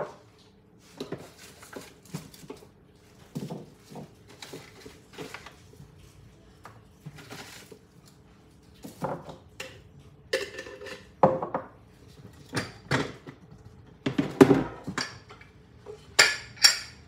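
Stainless steel pots, lids and kitchen utensils being handled and set down on a countertop: a string of irregular clinks and knocks that grow louder and more frequent in the second half.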